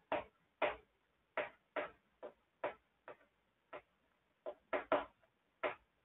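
Chalk writing on a chalkboard: about a dozen short, irregular taps and scratches as the letters are written.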